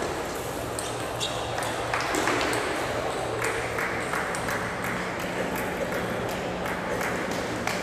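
Table tennis balls clicking irregularly off tables and bats, many sharp ticks in no steady rhythm, over a murmur of voices and a steady low hum.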